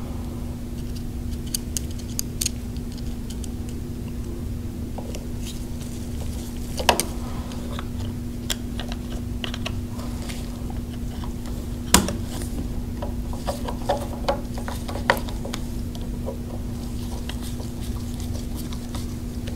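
Screwdriver and screws clicking and ticking against a metal drive-housing cover as it is screwed back onto a Graco Reactor pump, a few sharp clicks standing out, over a steady low hum.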